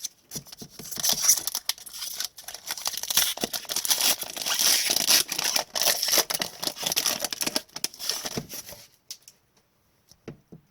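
Foil wrapper of a hockey card pack being torn open and crinkled by hand: dense crackling and rustling with many small snaps, stopping about nine seconds in.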